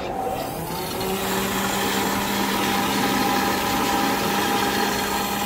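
Premix tea-coffee vending machine dispensing tea: its motor starts with a brief rising whine and then runs with a steady hum as hot tea pours from the tube into a paper cup.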